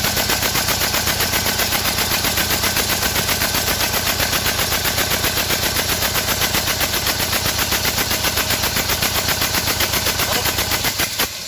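Deutz D2011 L04 four-cylinder diesel running with an injector pulled from its bore for a spray test, making a loud, rapid, even pulsing that stops abruptly near the end. The injector delivers only a little diesel, the cause of the misfire on that cylinder.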